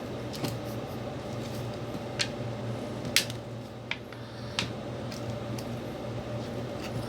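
Homemade slime being squeezed and kneaded by hand, giving about five short wet squelches and pops over a steady low hum.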